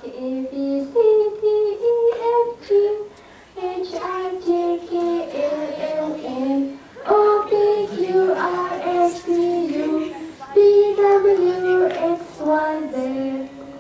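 A child singing a melody in phrases, holding notes that step up and down, with short breaks between phrases.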